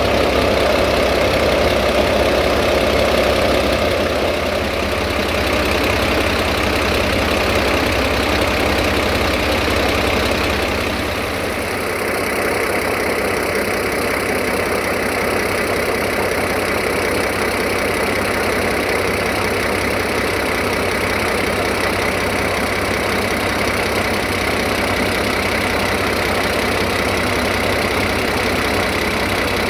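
Underfloor diesel engine of a class VT614 diesel multiple unit idling steadily. The low part of its sound weakens about eleven seconds in, then it runs on evenly.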